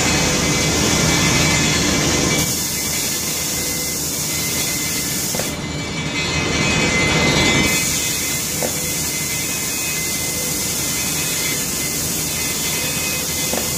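Steady rushing hiss of an automated spray-painting booth at work on steel gas cylinders: air from the extraction walls and the moving spray gun. It swells and eases as the gun passes, louder at the start and again about six to seven seconds in.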